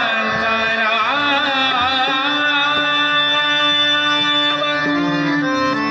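A man sings a slow devotional Marathi abhang. His voice bends through ornaments and then settles on a long held note, over sustained harmonium chords.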